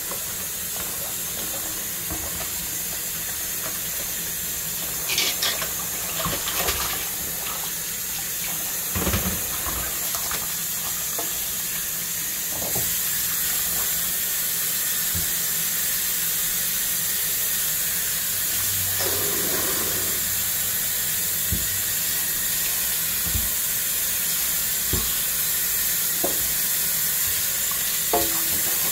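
Kitchen tap running into a stainless steel sink as raw chicken pieces are rinsed by hand, a steady hiss of water with a few clatters and knocks from the handling.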